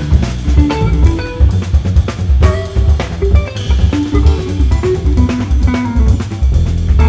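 Live jazz quartet playing: an electric guitar picks a line of notes over an upright double bass and a drum kit keeping a busy beat.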